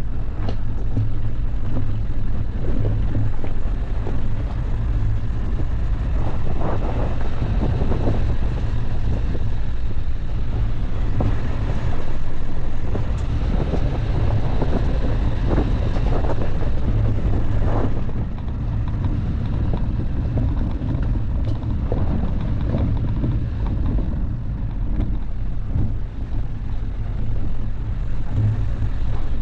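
Dacia Duster driving off-road: a steady engine and driving rumble with road and wind noise, and scattered knocks and rattles from bumps.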